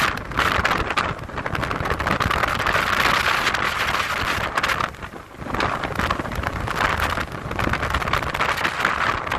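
Storm-force wind gusting hard across the microphone, easing briefly about five seconds in before picking up again.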